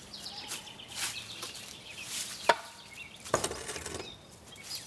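Footsteps on dry leaves and grass, with two sharp knocks a little under a second apart, the first the loudest, as something is handled at a wooden loft doorway.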